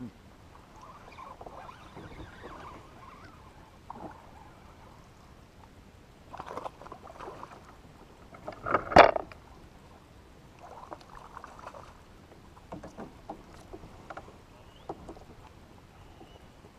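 Handling noises in a fishing kayak: scattered knocks, clicks and rustles as the angler shifts and works rod and gear against the plastic hull, with one sharp knock about nine seconds in.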